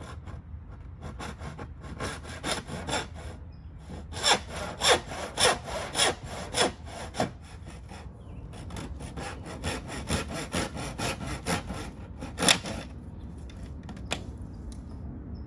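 Hand saw cutting through a sewer pipe in repeated back-and-forth strokes, about two a second. The strokes are heaviest a few seconds in, pause, then pick up again more lightly, with one sharp stroke near the end.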